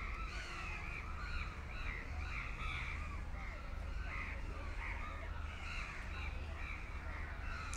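Birds calling over and over: a steady run of short calls, about two a second, with a low steady background rumble underneath.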